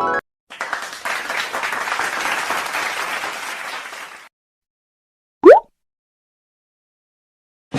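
Audience applause sound effect, a crowd clapping for about four seconds and then stopping. It is followed by a short, loud blip that rises quickly in pitch.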